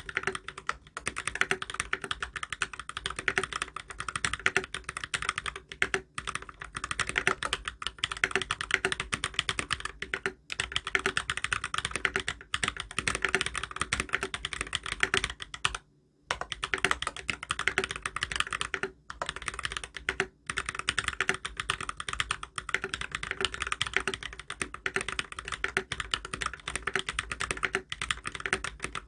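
Fast continuous typing on a mechanical keyboard with lubed Holy Panda tactile switches, a brass plate and ABS keycaps: dense key clacks with a brief pause about halfway through.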